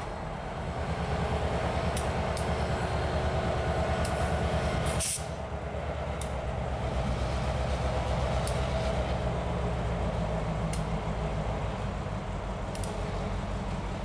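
EMD SD38-3 diesel road switcher's engine running steadily as the locomotive moves a string of covered hoppers, growing louder about a second in. Sharp light ticks come roughly every two seconds, and a brief hiss about five seconds in.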